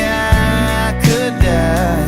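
Background music: a song with drum hits.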